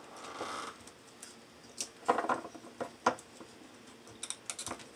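Small clicks and scrapes of fingers pulling wire connectors off the terminals of a small speaker and handling its metal frame. There is a brief rustle at the start, the loudest cluster of clicks about two seconds in, and another run of light clicks near the end.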